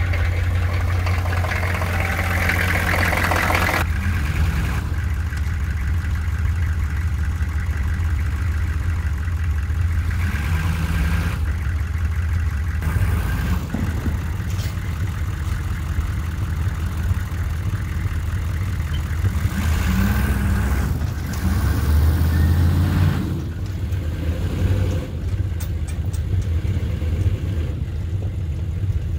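Diesel engine of an old dump truck running unevenly just after a hard cold start, then pulling away with the engine rising about twenty seconds in.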